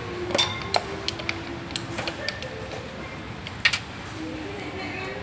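Plastic parts of electric fans clicking and knocking as a hand handles them: a run of sharp light clacks in the first two seconds and one louder knock about three and a half seconds in, over a steady background hum.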